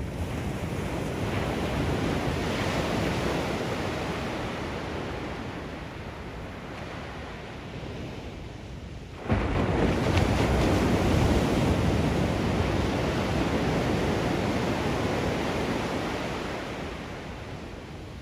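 Ocean surf breaking on a beach: the wash swells and fades, then a wave crashes suddenly about nine seconds in and its roar of white water slowly dies away.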